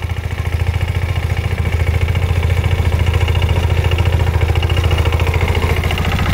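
Bungartz L5H single-axle tractor's engine running steadily under load as it pulls a plough through the soil, with a fast, even firing pulse.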